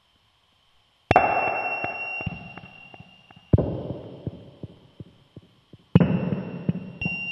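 Synthesized electronic noise: silence for about the first second, then abrupt noise hits that fade away over a couple of seconds, four of them, with a thin high steady tone over several and scattered clicks through the decays.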